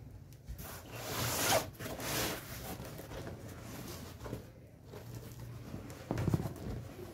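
Cardboard shipping box handled on a wooden table: picked up, turned over and slid about, with scraping and rustling of cardboard. The noise is loudest for the first two seconds, and a heavier knock comes about six seconds in as the box is set down.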